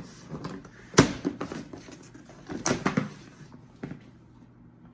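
A trading card box being pulled out of its case and handled: a sharp knock about a second in, two more close together near the middle, and lighter clicks and rustling between them.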